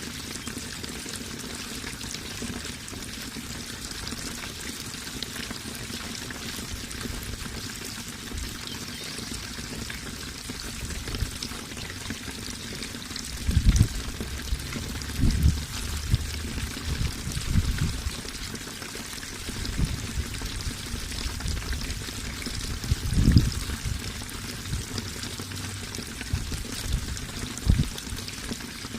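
Water pouring and trickling steadily, a continuous splashing hiss, with a few short, loud low bumps about halfway through and again a little later.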